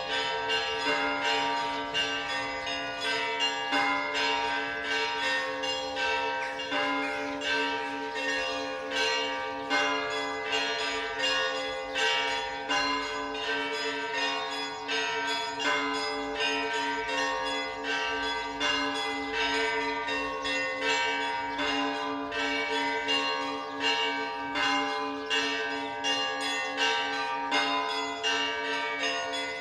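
Orthodox church bells ringing a continuous peal (zvon): many bells struck in quick succession over the steady hum of larger bells.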